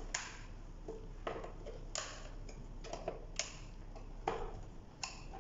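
Light, irregular plastic clicks and ticks, about two a second, as the cover of a plastic rotary isolator switch is seated and its corner screws are driven in with a screwdriver.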